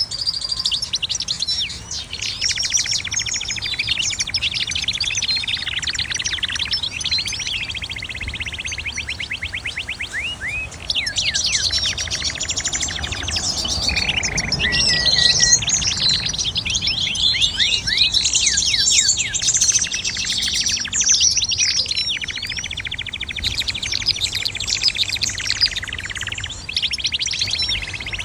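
A mixed flock of aviary finches and canaries chirping and singing together: many overlapping short calls with fast, rattling trills running through them.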